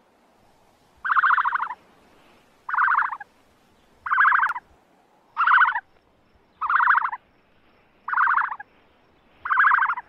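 An animal call repeated seven times, about one and a half seconds apart, each a buzzy note just over half a second long.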